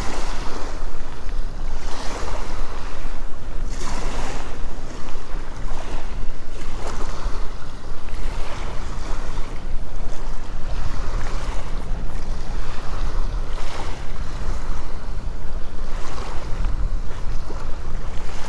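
Wind buffeting the microphone with a steady low rumble, over small waves washing up onto a sandy beach, their hiss swelling every couple of seconds.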